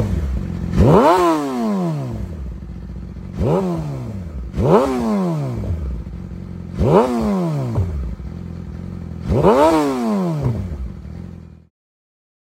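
Yamaha YZF-R6 inline-four sport bike engine revved through a Two Brothers aftermarket exhaust: five quick throttle blips, each rising sharply in pitch and falling back to idle. The sound cuts off abruptly near the end.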